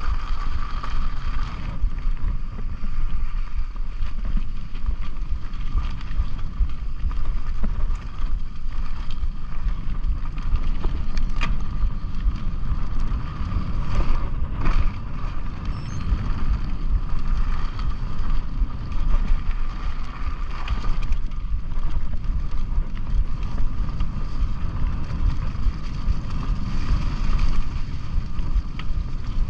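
Mountain bike riding along a dirt trail: wind rushing over the camera microphone over the rumble of the tyres, with a few short knocks and rattles from bumps around the middle.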